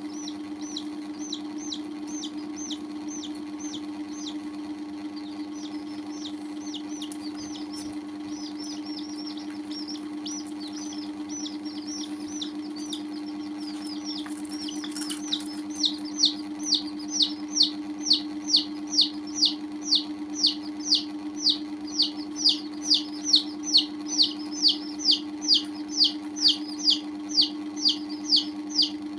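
Baby chicks peeping: a continuous run of short, high, falling chirps. They are faint at first and grow louder about halfway through, settling at roughly two a second. A steady low hum runs underneath.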